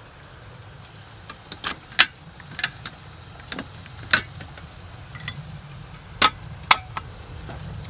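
Hard scallop shells clacking and knocking together as they are handled for washing: a scatter of sharp, uneven clicks over a steady low hum.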